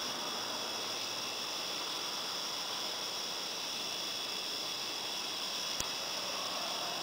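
A steady chorus of crickets chirping at two high pitches over an even hiss, with one brief sharp click about six seconds in.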